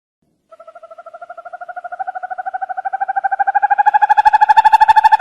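An owl giving a rapid trill, about ten pulses a second, starting about half a second in, rising slightly in pitch and growing steadily louder.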